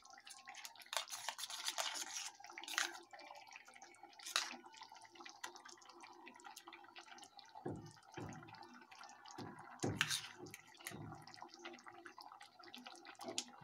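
Faint wet plops and small clicks as a spoon drops dollops of cream into thick tomato gravy simmering in a metal kadai, with a few louder spoon knocks against the pan.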